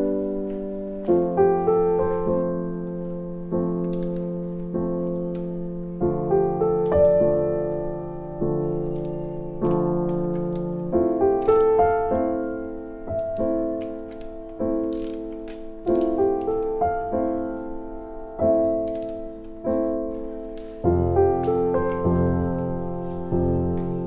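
Background piano music: a slow, repeating pattern of struck notes that ring and fade.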